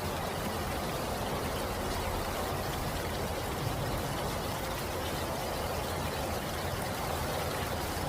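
Steady rain falling, an even unbroken hiss of water.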